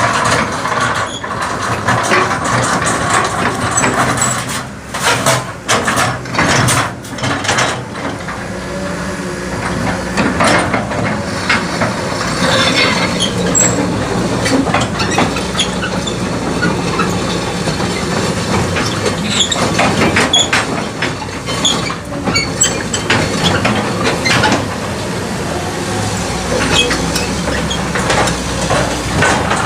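Cat 312D excavator with its diesel engine running steadily, under repeated metallic clanks and knocks scattered throughout, most frequent in the first several seconds.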